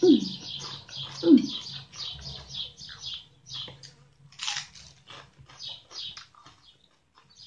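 Birds chirping steadily in quick short notes, about three a second. Near the start a woman gives two short falling 'mmm' hums about a second apart, savouring a mouthful of food.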